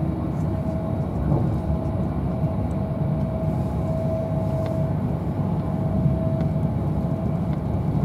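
Inside the carriage of a Class 390 Pendolino electric train running at speed: a steady low rumble, with a faint high whine that comes and goes.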